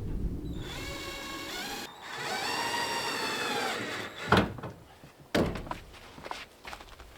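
A drawn-out creak whose pitch rises and then falls, followed by two heavy thunks about a second apart and a few lighter knocks.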